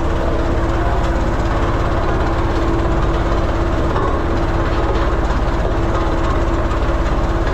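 Vibratory road roller's diesel engine running steadily: a rapid, even low rumble with a steady hum over it.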